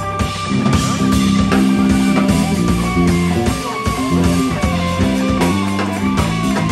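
Live band playing: electric bass, electric guitar, vibraphone struck with mallets, keyboards and a drum kit together, with a moving bass line under the guitar.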